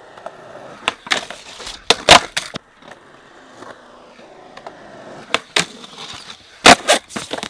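Skateboard wheels rolling on concrete, broken by two clusters of sharp clacks and knocks, one about a second in and a louder one near the end, when the board hits and grinds along a skatepark ledge.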